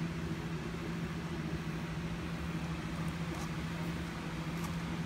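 Steady low machine hum over a constant hiss, with a few faint ticks.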